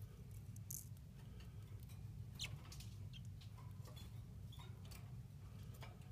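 Faint scattered ticks and tiny squeaks from a newly hatched green singer (yellow-fronted canary) chick stirring in the nest, over a low steady hum.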